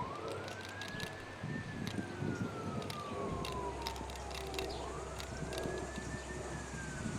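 Siren wailing: a single tone rises fairly quickly, then falls slowly, and this rise-and-fall comes round twice, roughly every four and a half seconds.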